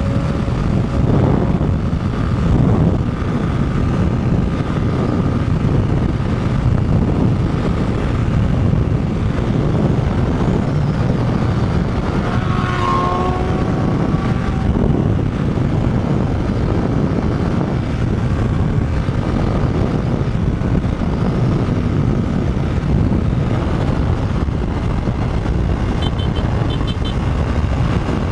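Motorcycle riding at road speed: a steady engine drone under heavy wind rumble on the microphone, with a brief higher pitched tone about halfway through.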